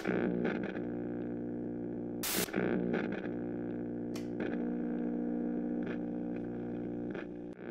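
A steady, distorted electronic hum made of several low tones, with scattered clicks and crackles and a short burst of hiss about two seconds in.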